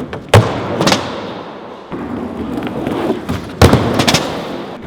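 Skating: wheels rolling over a hard park surface, with two loud board impacts about three seconds apart, each followed by a smaller knock.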